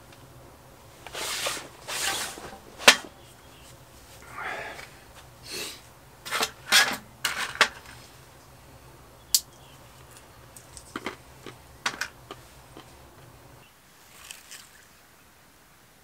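Small snacking and handling sounds at a table: soft rustles and a series of sharp clicks and cracks, the loudest crack about three seconds in, over a steady low hum that stops near the end.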